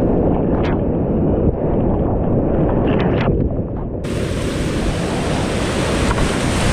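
Whitewater rapids rushing around a kayak, heard close up. The sound is muffled for the first four seconds, then suddenly opens into a loud, bright rushing hiss.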